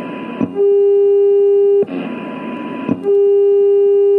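AM-demodulated test tones from an Airspy HF+ receiver running Linrad with a very fast AGC. A loud, distorted low tone from a strong test signal twice gives way for about a second to receiver hiss carrying a faint higher tone from a much weaker signal, as the strong generator is switched off and on again.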